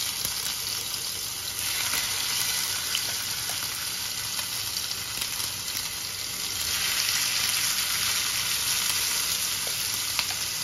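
Marinated chicken pieces sizzling as they fry in hot ghee in a nonstick pan, with a few light clicks. The sizzle grows louder about two-thirds of the way through as more pieces go into the pan.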